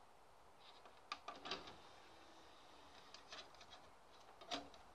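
Quiet mechanical clicks and a short clatter as the disc tray of a Pioneer PDR-609 CD recorder opens, then light clicks of a CD-R being handled and lifted out of the tray. The loudest click comes near the end.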